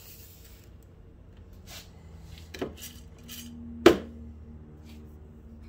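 Light clicks and one sharp metallic knock from handling an electric blade coffee grinder before it is switched on, with a brief ring after the knock.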